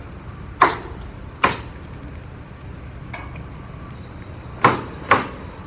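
Hammer blows driving nails, in two pairs of sharp strikes with a short ring: one pair near the start, another near the end, and a faint knock in between.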